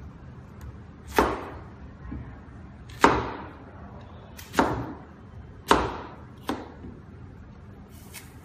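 A sharp kitchen knife chopping down through an apple onto a smartphone's screen protector: four hard knocks a second or two apart as the blade strikes the film-covered glass, then a lighter one.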